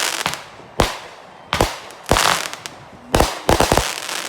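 Fireworks going off close by: sharp bangs about a second apart, a longer crackling hiss a little past the middle, and a quick volley of several bangs near the end.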